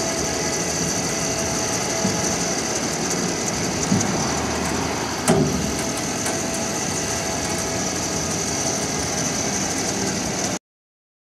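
A steady motor running with a high whine as the Weightlifter truck lift's dump bed lowers onto the pickup. There is a light knock about four seconds in and a sharper clunk about a second later. The sound cuts off suddenly near the end.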